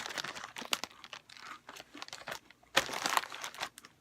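Plastic cookie packaging crinkling as it is handled, in two rustling stretches: one at the start and a second, louder one about three seconds in.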